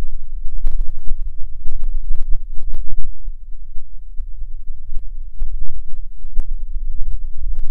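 Wind buffeting the camera microphone: an uneven low rumble that swells and drops, with scattered faint clicks.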